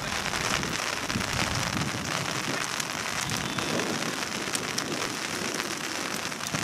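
Steady rain falling, an even hiss peppered with many small clicks of raindrops hitting close by.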